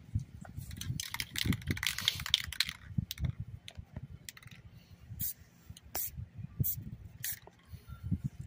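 Aerosol camouflage spray paint can hissing in one burst of about two seconds, followed by a few sharp clicks as the cans are handled. A low, uneven rumble of wind on the microphone runs underneath.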